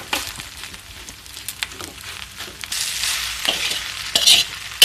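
Metal spatula scraping and tapping in a wok as fried rice is stirred and lumps are pressed apart, over a steady sizzle. The scrapes grow louder near the end, closing on a sharp knock.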